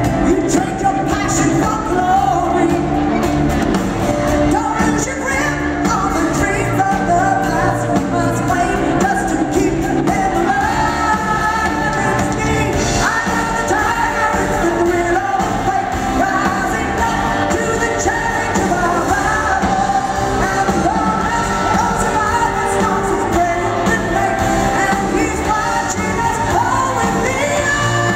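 Live rock band playing loudly over a PA, with electric guitar and singing, heard from the audience in a large hall.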